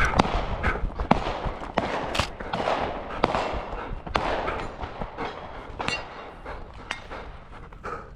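Sped-up audio of a person running an obstacle course: a fast, irregular clatter of footfalls, knocks and gear rattling, louder in the first half.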